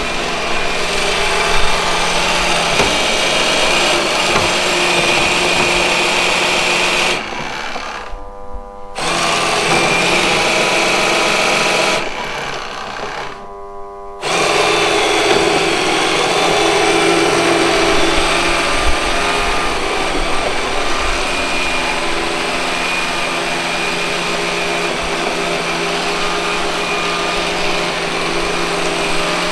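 Robot vacuum cleaner running with a steady motor whine and hum. Twice it goes quieter for a second or two and then picks up again, as it stops at an obstacle it cannot climb and backs away from it.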